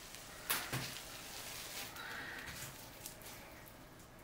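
Plastic bubble wrap crinkling as it is peeled up off wet acrylic paint on a canvas, with a sharp crackle about half a second in and quieter rustling after.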